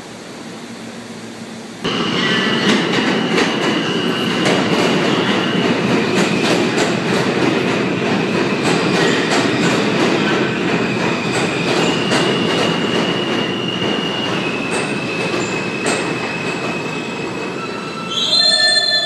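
New York City subway train of R160B cars pulling into the platform: a loud rumble with a steady high-pitched wheel squeal and many short rail clicks, easing off as it slows. A brief burst of high tones comes near the end as it comes to a stop.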